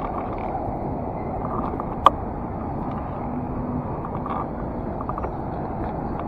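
Steady road-traffic noise from passing vehicles, with one sharp click about two seconds in.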